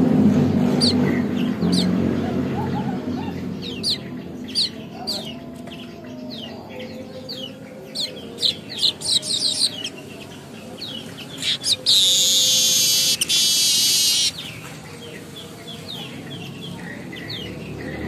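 Caged weaver bird (manyar) singing, a young bird still learning its song. Short, high, downward-swept chirps come scattered and then in a quicker run. About twelve seconds in they lead into a loud, wheezy buzzing trill of some two seconds.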